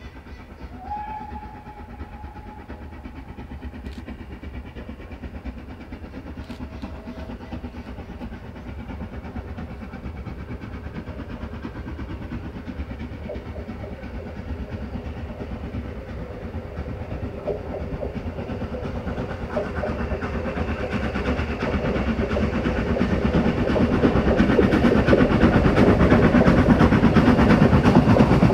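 Steam train running on the line, its rumble and clatter of wheels on rail growing steadily louder and much louder in the last ten seconds or so as it draws near. A short high whistle-like tone sounds about a second in.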